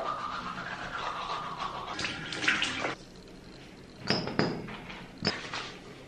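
Water running and splashing at a bathroom sink, stopping about three seconds in. A few short, sharp sounds follow around four and five seconds in, as a foam cleanser pump is pressed and water is splashed on the face.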